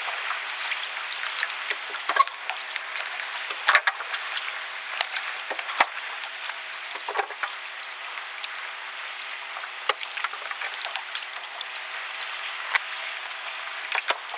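Steady crackling and fizzing of shallow water lapping among the shore rocks, with a few scattered knocks of gear being handled and loaded into the boat.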